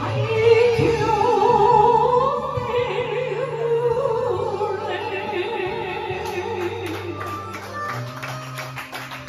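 A woman singing into a microphone over a recorded backing track, holding long wavering notes with vibrato. About seven seconds in her voice stops and the accompaniment carries on with plucked-string notes.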